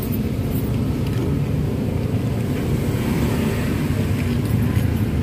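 Steady low rumble of motor vehicle engines running.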